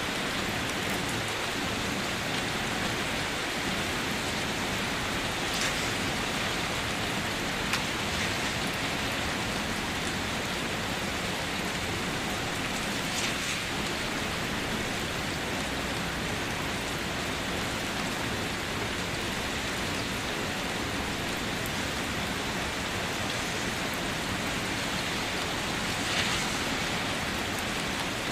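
Steady rain falling, with a few brief louder taps of drops hitting a surface.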